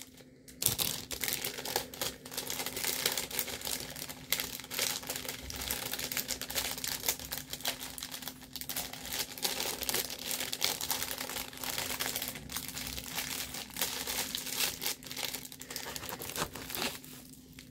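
Plastic packaging crinkling and rustling irregularly as it is handled.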